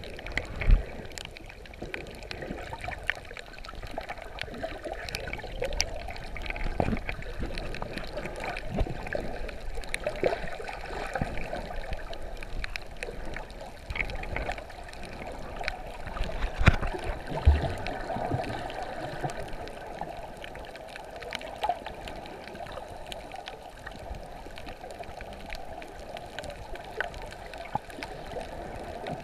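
Underwater sound heard through an action camera's waterproof housing: steady muffled water noise with scattered sharp clicks, and a few low thumps about a second in and twice around 17 seconds.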